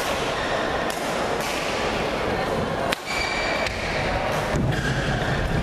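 Badminton rally: several sharp racket-on-shuttlecock hits a second or two apart, with brief high squeaks of shoes on the court floor. Under it runs a steady murmur of spectators in a large hall.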